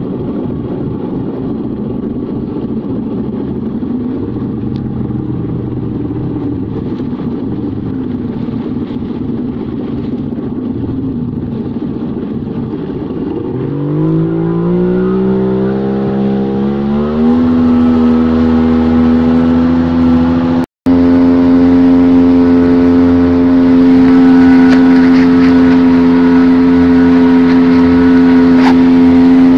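Jet ski engine running at low speed with water noise, then revving up about halfway through, its pitch rising over a few seconds before it settles into a steady high drone at speed. The sound cuts out for an instant shortly after.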